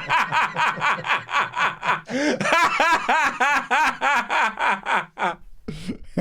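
Loud, rapid laughter: a long run of quick laughs that stops about five seconds in.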